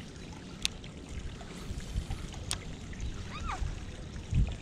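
Creek water trickling, with low rumbling on the microphone. Two sharp clicks, a single short rising-and-falling chirp past the middle, and a dull thump near the end.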